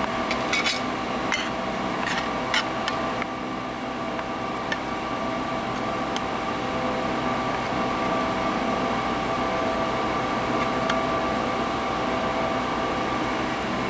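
Hydraulic press brake running with a steady hum that holds several even tones. A few light clicks and knocks fall in the first few seconds.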